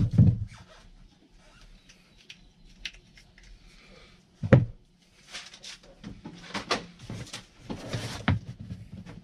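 Engine parts and bolts being handled and set down, giving a few knocks and clatters. There is one loud knock about four and a half seconds in and a run of clatter near the end.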